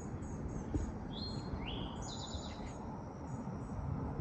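Small birds chirping: a run of short, high chirps about three a second, with a few longer whistled notes in the middle, over a steady low background rumble.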